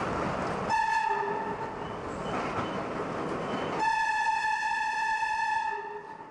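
Subway train running through a tunnel, its horn sounding a short blast and then a long blast of about two seconds on one steady high pitch.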